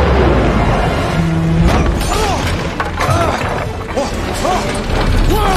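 Film soundtrack of a plane crash-landing through trees: dramatic music over repeated crashing and smashing impacts. From about two seconds in, short rising-and-falling squeals cut through.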